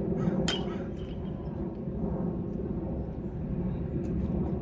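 A metal baseball bat striking a ball once about half a second in: a sharp crack with a short ringing ping, over a steady low rumble.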